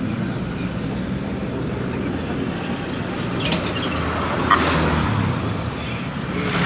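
2016 Kia Rio's engine idling steadily, on a car with a misfire and lean-mixture fault codes. A brief whooshing swell with a sharp click comes about four and a half seconds in.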